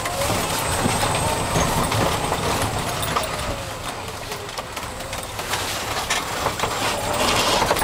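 Golf cart climbing a steep concrete path, its motor working under load with a faint whine that rises and then falls in pitch, over a steady noise of tyres on concrete.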